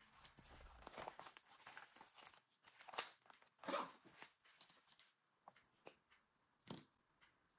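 Faint rustling and soft knocks as a zippered pencil case is handled and moved over a notebook, with a single light tap near the end.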